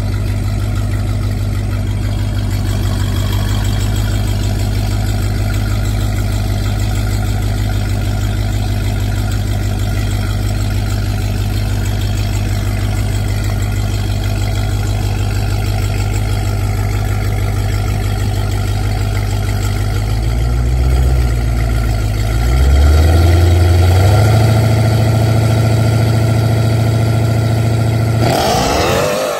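Modified Jeep Grand Cherokee Trackhawk's supercharged 6.2-litre Hemi V8 idling steadily, loud. About twenty seconds in the revs are blipped and then raised and held higher. Near the end the engine revs sharply upward as the SUV launches hard from a standstill.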